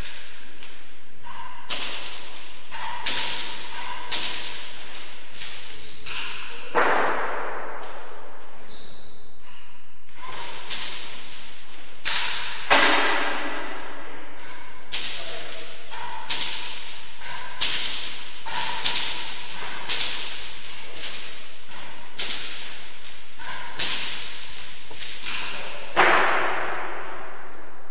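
A racket-sport rally in an enclosed indoor court: a hard ball smacking off rackets and walls every second or so, each hit echoing through the hall, a few much harder shots standing out. Short high squeaks between hits, from shoes on the court floor.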